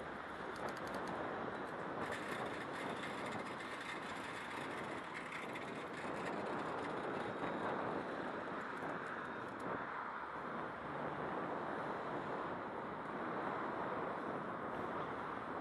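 Steady rushing noise of riding a bicycle, heard from a head-worn camera: wind and rolling tyres. Rapid faint ticking runs through the first ten seconds or so.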